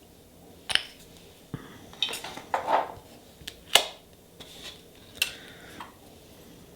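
Light clinks and knocks of nail-stamping tools being handled, with a short scrape about two and a half seconds in, like a scraper drawn across a metal stamping plate; the sharpest click comes near four seconds.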